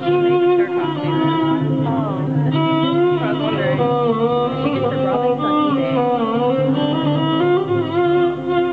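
Live band music: acoustic guitars playing under a melody that slides smoothly up and down between notes over steady low notes.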